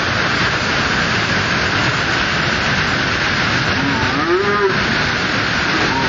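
Waterfall water rushing steadily over the rocks. About four seconds in, a single drawn-out call rises and falls in pitch above the water.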